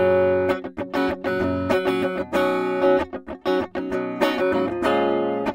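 Schecter V-1 Hellraiser FR electric guitar played through its EMG 89 neck pickup: phrases of picked and strummed chords and notes, broken by short gaps.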